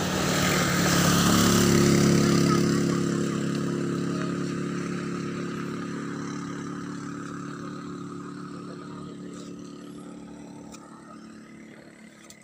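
Motorcycle-sidecar tricycle passing by with its engine running steadily, loudest about two seconds in, then fading away slowly as it moves off.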